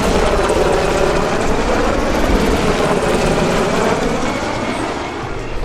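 UH-60 Black Hawk helicopters flying past, their rotor and turbine noise loud and steady with a sweeping sound as they pass, easing off a little near the end.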